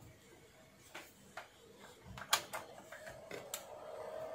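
Clicks and knocks of a mains plug being pushed home into an isolation transformer's socket and switches pressed, the loudest about two seconds in. About three seconds in, a steady hum begins as the transformer and oscilloscope come under power.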